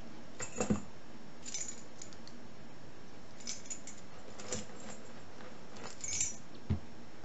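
Scattered light metal clinks and taps from padlocks being handled. The loudest come about half a second in and near the end.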